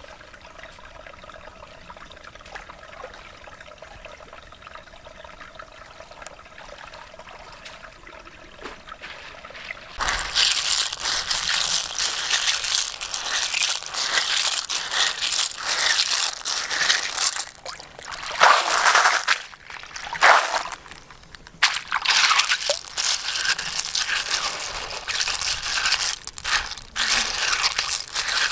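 Water sloshing and splashing as hands stir and rinse river clams in a wicker basket dipped in a river. It starts suddenly about a third of the way in and comes in uneven surges after a quiet stretch of faint background.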